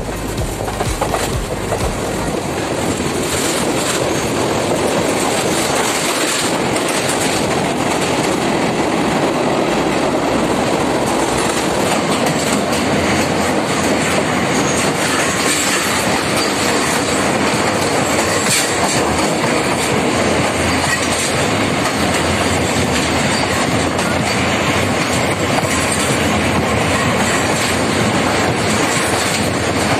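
Passenger train running at speed, heard through an open carriage window: a loud, steady rush of wheel and rail noise, enclosed by a tunnel for most of its length.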